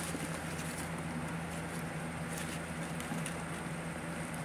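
Laminated cards being handled and leafed through, a few faint clicks and rustles, over a steady low background hum.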